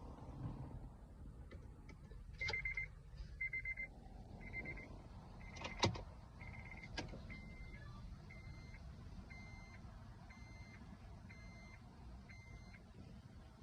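Car's electronic warning chime beeping about once a second, short high beeps, the first few louder than the rest, with one sharp click about six seconds in.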